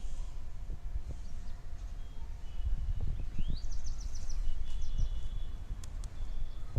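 A small bird singing a short phrase, a rising note followed by a quick run of high notes, with a few more high notes after it, over a steady low rumble. A couple of sharp clicks come near the end.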